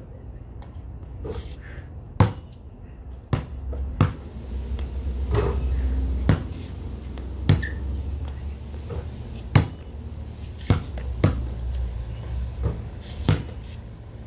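A basketball thudding sharply every second or two as it bounces on concrete and comes off the backboard and rim. A low rumble swells and fades in the middle.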